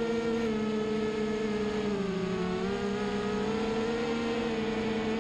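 FPV racing drone's brushless electric motors giving a steady whine that dips in pitch about two seconds in and climbs back as the throttle changes.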